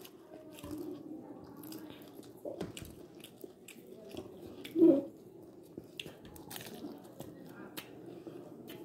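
Close-up biting and chewing of crunchy food, a run of short, irregular crunches and clicks. A brief vocal sound about five seconds in.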